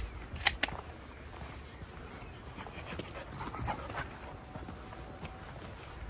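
A hunting dog panting, with two sharp clicks about half a second in.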